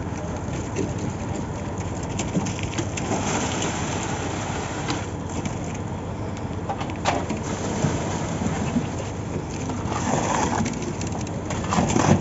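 Concrete slab pour on a building site: a steady machine running underneath, with scattered knocks and scrapes that grow louder near the end.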